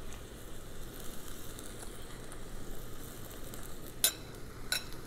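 Oat milk and vegetable stock simmering in a nonstick skillet, a steady light sizzle. Two light clinks of a spoon against the mixing bowl about four seconds in.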